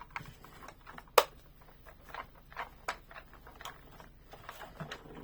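Plastic parts of a toy excavator playset being handled, a scatter of light clicks with one sharp snap about a second in.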